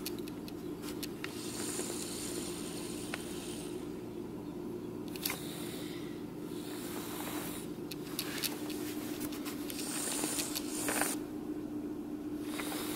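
Renault Clio 3 petrol-or-diesel engine idling steadily at about 1000 rpm, heard from inside the cabin as an even low hum, still warming up after a cold start at −8 °C on Liqui Moly Leichtlauf High Tech 5W-40 oil.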